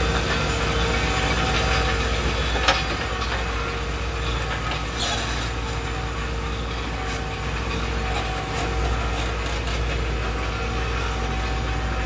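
Komatsu WB93R backhoe loader's diesel engine running steadily as the backhoe arm swings and digs. There is one sharp clank a few seconds in, and the bucket scrapes through dirt and stones.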